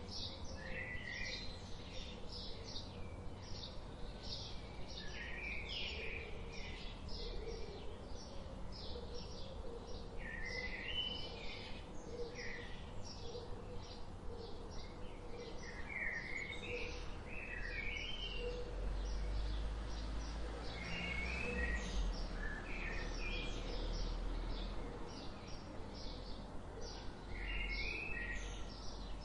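Birds calling in an orchard: a steady run of short high chirps several times a second, with short warbled call phrases every few seconds. A low rumble swells for several seconds past the middle.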